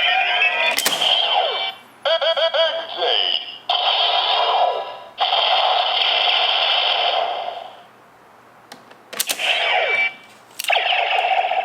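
Bandai DX Neo Decade Driver toy belt playing its electronic voice call and Final Attack Ride sound effects through its small, tinny speaker in several bursts. Sharp plastic clicks from the belt's mechanism come near the start and again about nine seconds in.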